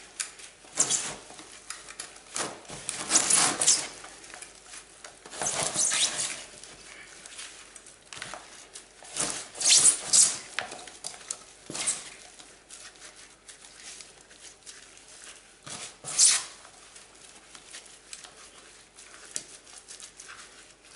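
A soil-block maker being pushed and scraped through wet, sticky potting compost in a tray as its cells are packed full: irregular scraping and rustling in short bursts, about six of them louder than the rest.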